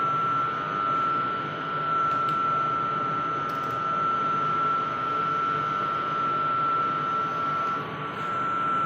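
Steady drone of power plant machinery with a constant high-pitched whine over a rushing hum.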